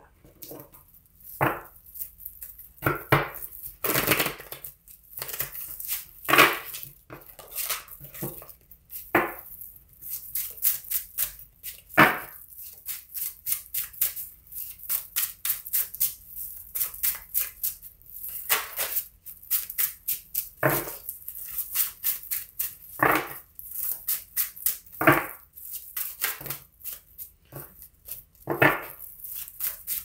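A deck of tarot cards being shuffled by hand: a running patter of soft card flicks and rustles, with a louder sharp tap every few seconds.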